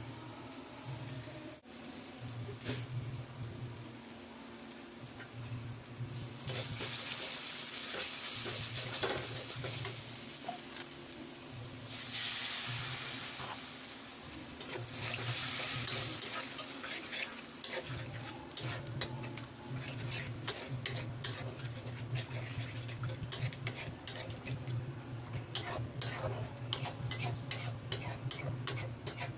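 Egg curry sizzling in hot oil in a pan, with several loud surges of sizzling. In the second half a spoon stirs the pan, giving a quick run of scrapes and taps against the metal.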